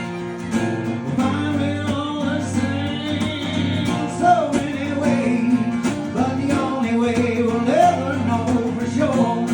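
A live country song on acoustic guitar: steady strummed chords, with a wordless sung or played melody line bending over them between verses.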